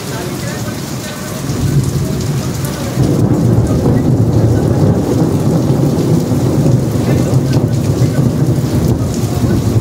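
Heavy rain falling, with a long, low rumble of thunder following a lightning flash. The thunder sets in about a second and a half in and grows louder at about three seconds.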